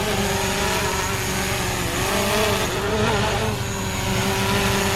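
DJI Mavic Pro quadcopter hovering close by with its propellers whining steadily. The pitch wavers about two to three seconds in as the motors adjust. A low rumble runs underneath.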